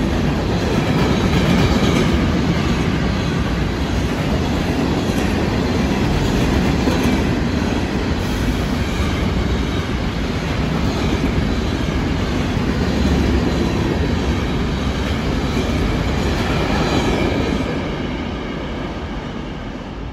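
Freight train's open hopper and gondola cars rolling past close by: a steady rumble and rattle of steel wheels on rail. It fades away over the last few seconds as the end of the train passes.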